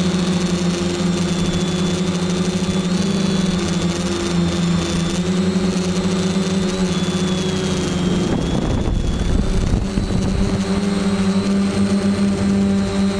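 Quadcopter's electric motors and propellers running in flight, heard close up from the onboard camera: a steady hum with a high whine that wavers in pitch. About eight seconds in the sound breaks up and shifts briefly, then steadies again.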